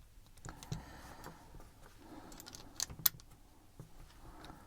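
Light clicks and faint handling of small metal padlock parts being fitted together by hand, with two sharper clicks close together about three seconds in.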